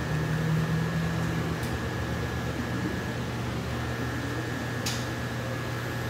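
A steady low mechanical hum, with two faint ticks.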